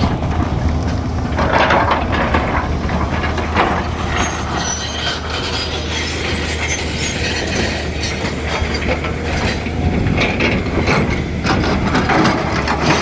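Excavator's diesel engine running steadily, with repeated irregular clattering and scraping of stone and metal over it.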